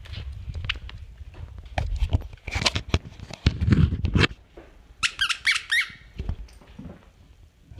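Dog at play with a tennis ball: scuffling, knocks and thumps through the first half, then a quick run of high squeaks about five seconds in.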